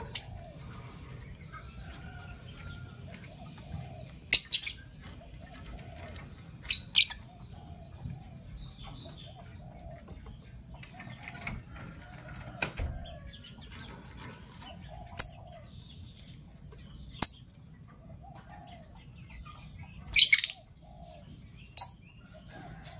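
Caged lovebirds chattering softly, broken by about eight sharp, shrill high calls, the longest near the end.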